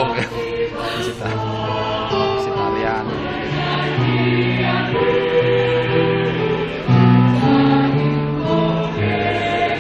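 Mixed school choir singing in several parts, holding sustained chords that change every second or so, growing louder about seven seconds in.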